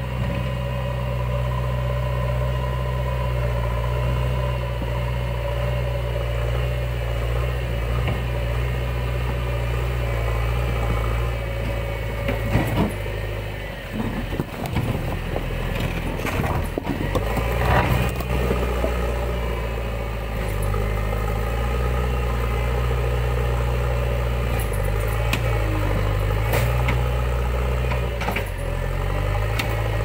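JCB 3DX backhoe loader's diesel engine running steadily as the machine moves a bucket load of logs and stones. Around the middle, the engine note dips and there is a run of knocks and clatter as the load is set down. The engine then carries on running.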